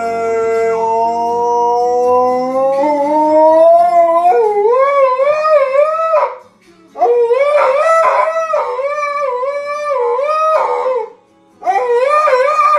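A husky-type dog howling. One long howl rises slowly in pitch and then wavers. Two more wavering howls follow, with short breaks between them.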